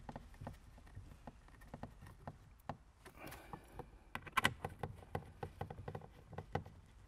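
Hand screwdriver tightening the screws of the tweeter in a MINI Cooper's dash-top center-channel speaker: a run of small irregular clicks and ticks, a short scrape about three seconds in, and a cluster of louder clicks about four and a half seconds in.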